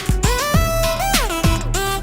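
Background music: an electronic track with gliding synth notes over a steady bass and beat.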